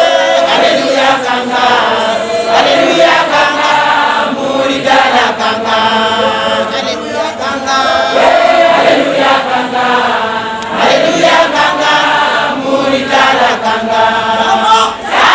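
A church congregation singing a hymn together, many voices in a chanting style.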